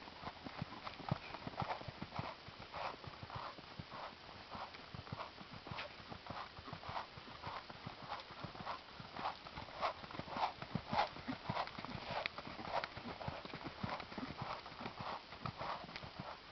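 Steady clip-clop of an animal's footsteps, about two steps a second.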